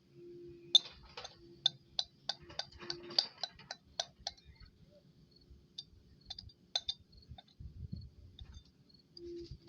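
A series of sharp, irregularly spaced clicks, crowded together in the first few seconds and thinning out later, over a faint steady hum.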